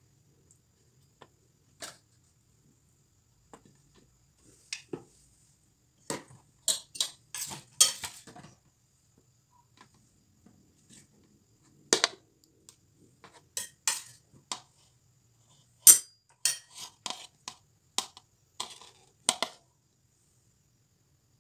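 Clinks and clatters of a serving plate and utensils being handled, as sharp separate knocks that come in two bunches, about six to nine seconds in and again from about twelve to nineteen seconds in.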